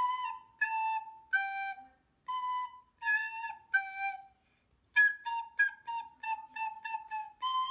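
A simple tune played on a flute-like wind instrument: a falling three-note phrase played twice, then a quicker run of short, evenly spaced notes.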